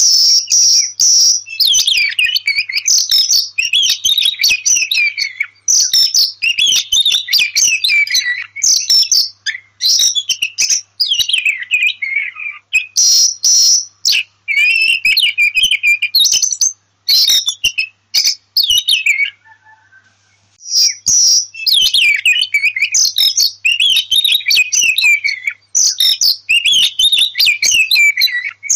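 Oriental magpie-robin (kacer) singing: a rapid, loud, near-continuous run of varied whistled phrases mixed with sharp, harsh notes, with a short pause about two-thirds of the way through.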